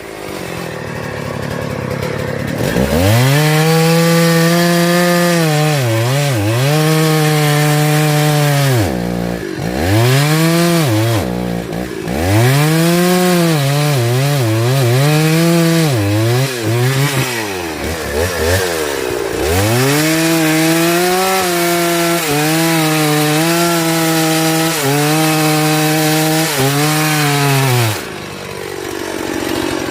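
Two-stroke chainsaw held at high revs while cutting into a tree trunk; its pitch sags and recovers over and over as the chain bites under load. It winds up from idle about three seconds in and drops back to idle near the end.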